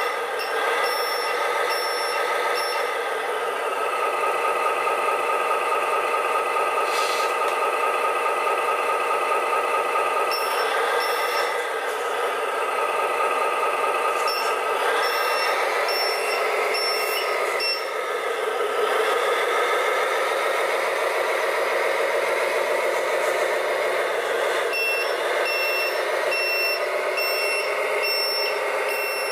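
An RC scale truck's electronic sound module plays a heavy diesel truck engine running, with the revs rising and falling about halfway through. Repeated high reversing beeps come in several runs: at the start, around ten seconds, mid-way and again near the end.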